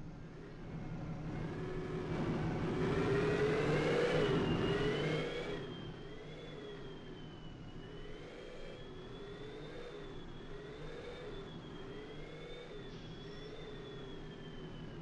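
A vehicle engine running; it rises in pitch and gets louder about two seconds in, peaks around four to five seconds, then settles back to a steady, slightly wavering drone.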